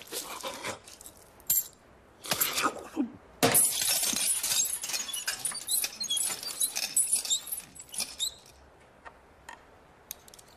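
Crackling, crunching and clinking sound effects: a few short bursts, then a dense stretch of crackle and clinks starting about three and a half seconds in and lasting about five seconds before dying away.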